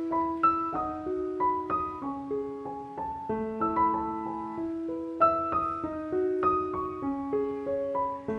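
Background solo piano music: a slow, gentle melody of single notes over held lower notes.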